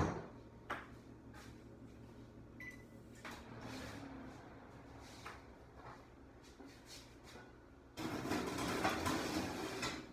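Cast-iron Lodge pots being loaded into an oven: scattered knocks and clunks, then a louder stretch of noise lasting about two seconds near the end.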